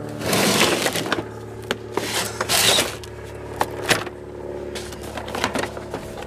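Hard plastic top cover of a Predator 3500 inverter generator being lifted and handled: scraping through the first three seconds and a few sharp knocks, the last about four seconds in. Underneath, a steady low engine hum.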